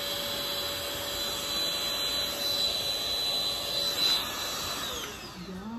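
Cordless stick vacuum cleaner running steadily, a whir with a high whine over it. About five seconds in the motor is switched off and the whine falls away as it winds down.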